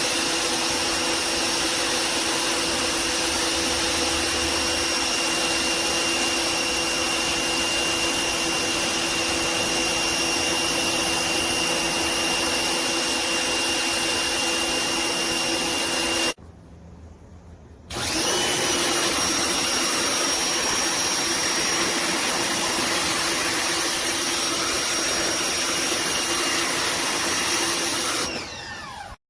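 Electric pressure washer's motor and pump running, a steady whine over a hiss. It shuts off for about a second and a half partway through, spins back up, and winds down near the end.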